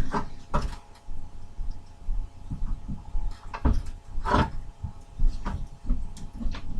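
Irregular thumps and knocks about a second apart, with a steady hum underneath.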